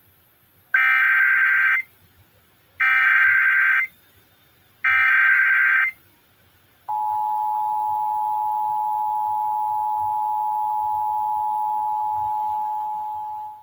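Emergency Alert System header: three loud one-second bursts of SAME digital data tones, about a second apart. Then the steady two-tone EAS attention signal sounds for about six seconds and tapers off at the end. Together they announce that an emergency alert follows.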